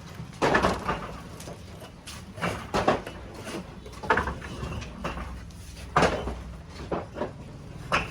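Irregular knocks and clattering every second or two, each with a short ringing tail, over a low steady hum.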